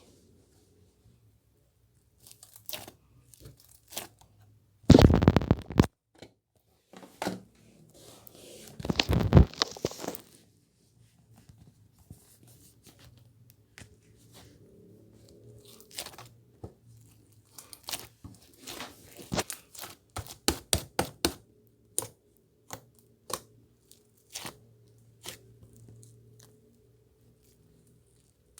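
Slime mixed with soothing gel being stretched, pressed and squished by hand, giving sticky crackles, clicks and pops. Two louder bursts of dense crackling come about 5 and 9 seconds in, and a quick run of clicks comes later.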